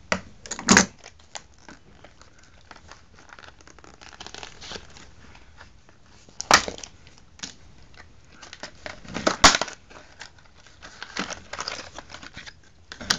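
Plastic retail packaging of a luggage lock being torn and crumpled open by hand: irregular crinkling and crackling, broken by a few sharp, loud snaps of the plastic, about a second in, midway and again about three seconds later.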